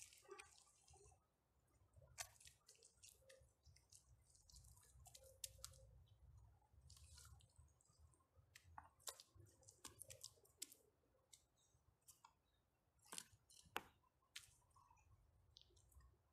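Faint squelching of wet mud being scooped and pressed by hand between stones, with scattered small clicks and a few sharper knocks as the stones are handled.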